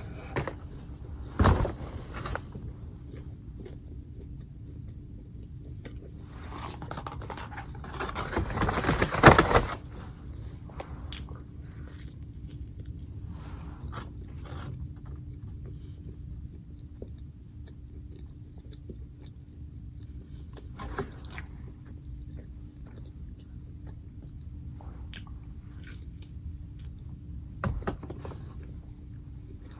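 A person eating McDonald's food close to the microphone: chewing and biting, with a few sharp clicks or knocks and a louder, noisier stretch of a second or two about eight seconds in.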